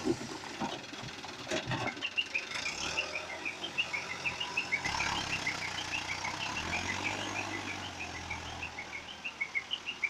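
Many quick, high chirps, several a second and irregular, over the low, faint running of a diesel loader engine.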